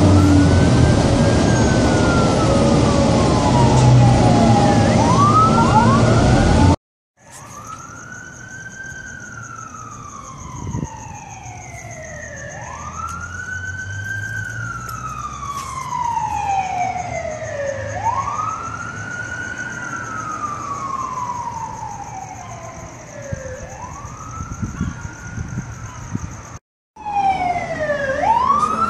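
Emergency vehicle siren in wail mode, slowly rising and falling about every five seconds. For the first few seconds it is heard faintly under loud road and engine noise from inside a moving vehicle, and after a break near the end it sweeps faster.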